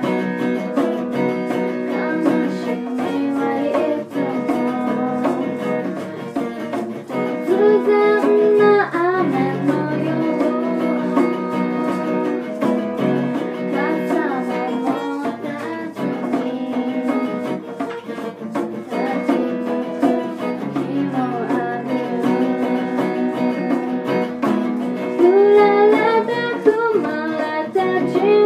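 A small acoustic band playing a song: a strummed acoustic guitar and a girl's singing over a djembe hand drum and hand shakers keeping a steady beat.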